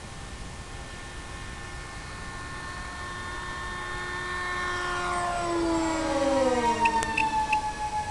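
Electric-powered radio-controlled model plane flying low past, its propeller whine growing louder and then dropping in pitch as it goes by, the level fluttering at its loudest.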